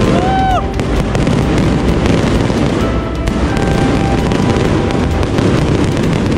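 High-altitude aerial fireworks display: a dense, steady barrage of shells bursting and crackling overhead.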